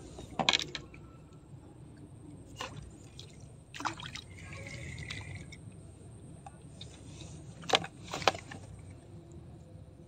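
Running creek water with a steady low rush, broken by several sharp clicks or knocks, the loudest two close together near the end.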